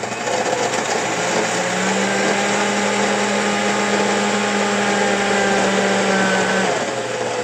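Electric blender running, blending ice with milk and chocolate drink powder: a steady, loud motor whine over the churning, dipping slightly in pitch near the end.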